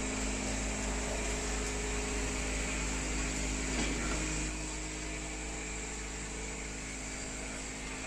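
Automatic nylon cable-tie strapping machine running: its vibratory bowl feeder and air compressor give a steady mechanical hum and buzz, with a slight change in tone about four seconds in.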